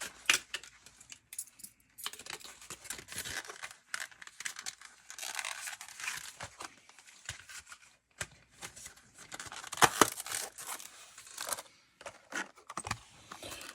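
Plastic packaging being handled, crinkled and torn open, with scattered clicks and a couple of sharp clicks about ten seconds in.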